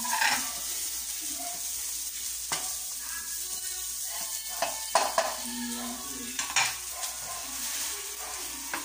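Chopped onion sizzling as it fries in a nonstick wok, stirred with a spatula that scrapes across the pan and knocks against it with a few sharp clicks.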